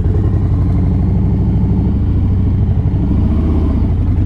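Harley-Davidson Street Bob's Milwaukee-Eight 114 V-twin engine running at low RPM, steady with a slight rise and fall in pitch near the middle.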